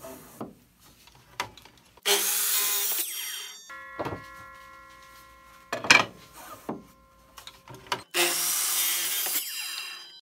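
Miter saw cutting maple boards to length, two cuts of about one and a half to two seconds each. Between the cuts, wooden knocks as the pieces are set on the saw against the stop block.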